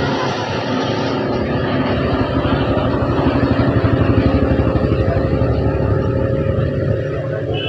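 Outboard motor of a small passenger speedboat running at speed with a fast, steady throb. It grows louder as the boat passes closest, about halfway through, then eases as it pulls away.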